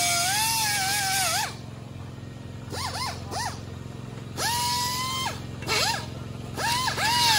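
Power tool driving a socket on the seized swing-arm pivot of a Kawasaki KLX dirt bike. It is run in short trigger blips, its whine rising and falling with each, with a steady run about halfway through and again at the end.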